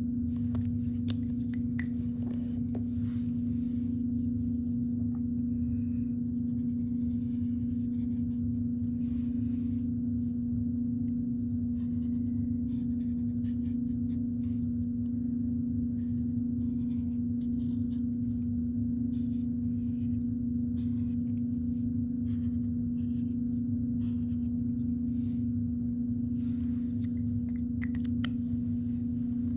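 Permanent marker drawing on craft foam in many short strokes, a faint scratchy rubbing, over a steady low hum that is louder than the strokes.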